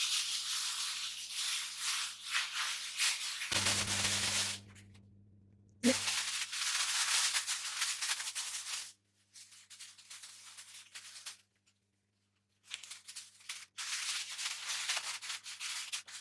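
Crinkling of a Baci chocolate's foil wrapper and paper note as they are unwrapped and unfolded by hand, in several bursts with short pauses.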